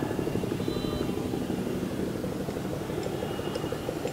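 Helicopter flying past overhead, its main rotor giving a rapid, even beat over a steady engine noise.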